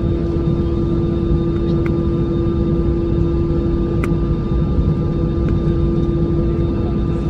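Airplane engines running with a loud, steady rumble and a constant droning tone that neither rises nor falls.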